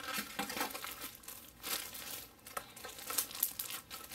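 Clear plastic wrapping crinkling in irregular bursts as hands handle and pull at the film around a bathroom scale.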